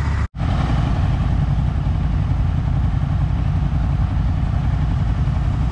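Car on the move: a steady low rumble of engine and road noise, broken by a brief dropout just after the start.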